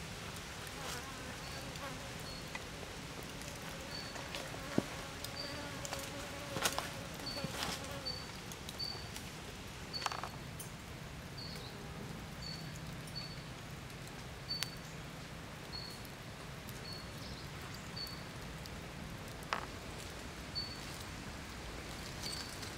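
Forest ambience: a short, high-pitched chirp repeating about once a second, and a fly buzzing close by at times. A few sharp clicks and knocks, from the wood of the campfire and the skewer being handled.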